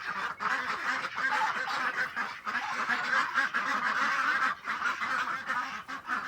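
Domestic ducks and geese calling together in a continuous flock chatter of quacks and honks, easing off near the end.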